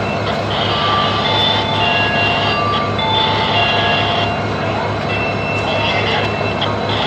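WDP4D diesel locomotive's 16-cylinder two-stroke EMD engine running with a steady low throb as it closes in slowly for coupling. Short high-pitched squeals and whines come and go over it.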